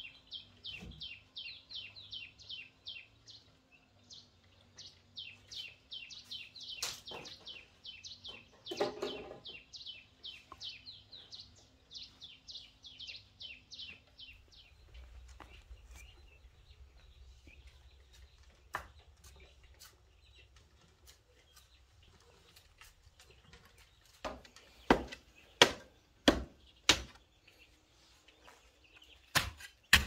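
A bird chirps quickly and repeatedly, about five high chirps a second, for the first half. Later come about six sharp strikes of a long-handled digging blade into hard, stony soil, the loudest sounds heard.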